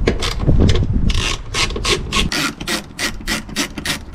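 Ratcheting hand driver undoing the T25 Torx screws that hold a Smart Fortwo 451 headlamp. Short rasping ratchet strokes, irregular at first, then settling into an even run of about four to five a second.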